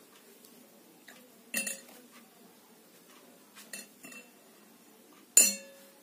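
Two sharp clinks of a hard object striking a dish, about four seconds apart, the second louder; each rings briefly. A few faint taps come between them.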